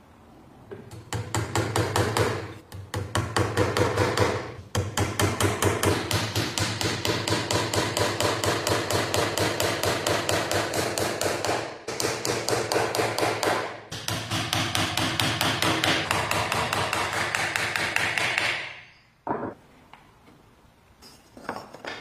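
Hammer striking in a rapid, even rhythm of many blows a second, with a few short breaks, stopping abruptly about three-quarters of the way through; a couple of faint knocks follow near the end.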